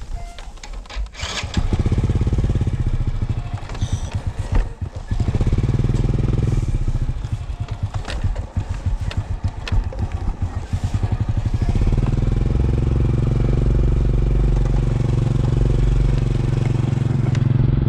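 Honda motorbike's small single-cylinder engine, heard from about a second and a half in after a few clicks and knocks. It is ridden over bumpy grass, its revs rising and falling unevenly, then it runs steadily for the last six seconds or so.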